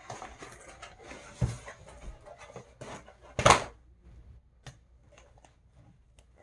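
Small objects rustling and clattering as they are handled and set down on a counter, with one loud sharp knock about halfway through and a few lighter clicks after it.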